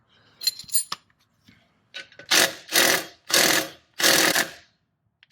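Ratchet wrench being swung back and forth to back out a rusted exhaust bracket bolt, five strokes of ratchet clicking about one every 0.6 s starting around two seconds in, with a short high squeak from the seized bolt about half a second in.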